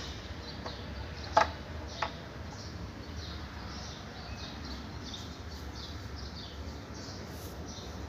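Felt-tip marker squeaking in short strokes against a whiteboard, after two sharp clicks about a second and a half and two seconds in.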